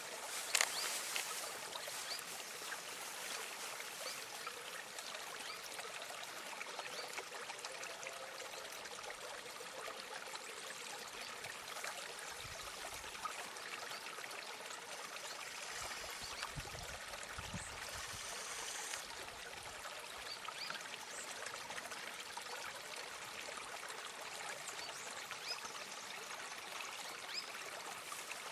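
A small stream trickling and babbling steadily over stones, with a couple of brief low rumbles about halfway through.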